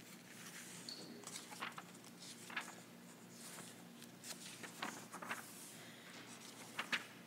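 Faint, scattered rustles and soft clicks of paper pages being turned as a congregation leafs through their books to find a page.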